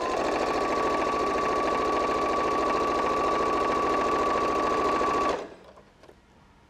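Janome electric sewing machine running at a steady fast speed as it stitches fabric, with a steady whine from its motor. It stops suddenly about five seconds in.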